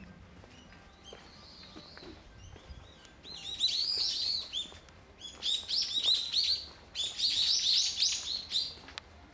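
A bird calling in three bursts of rapid, high chirping notes, each a second or so long. The first burst comes about three seconds in, and the other two follow close after it.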